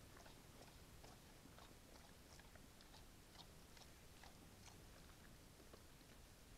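Faint, irregular crunching and clicking of a brown bear chewing food from the ground close to the trail camera, over the camera's steady hiss.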